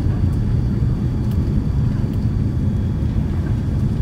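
Cabin noise of a Boeing 787-9 Dreamliner rolling down the runway after touchdown: a steady low rumble.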